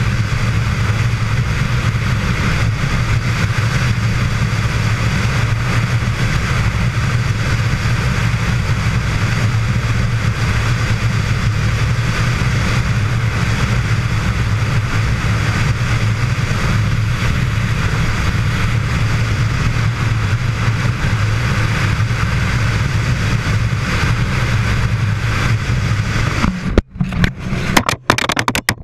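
Steady wind rush and engine drone of a motorcycle cruising at highway speed, picked up by a camera mounted on the bike. A little before the end the steady noise breaks into choppy, uneven bursts with short gaps.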